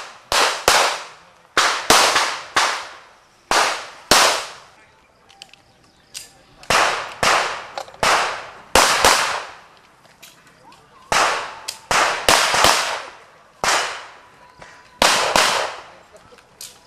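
Pistol shots fired in quick runs of two to four, with pauses of about a second between runs; each shot is a sharp crack that rings out briefly.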